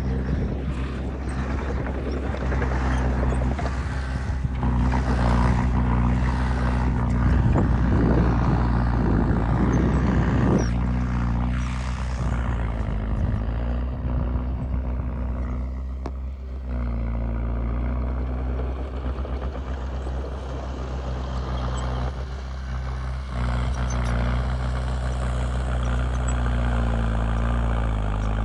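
Heavy diesel engine of earthmoving machinery running steadily, its low drone shifting with load, with scattered knocks and rattles in the first half.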